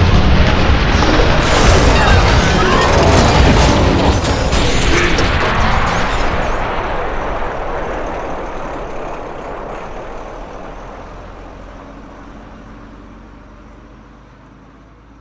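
Dubbed-in film sound effects, booming rumble and rapid mechanical clattering mixed with music. Loud through the first half, then a long, even fade-out.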